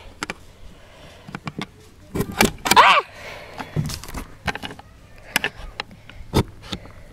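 Wooden rabbit-hutch door being handled and its metal barrel-bolt latch worked: a string of sharp metallic clicks and wooden knocks.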